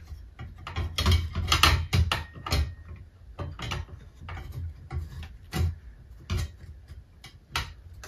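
Irregular clicks and knocks of plastic and metal parts being handled as a ceiling fan's LED light unit is wired in and fitted up into the fan housing by hand.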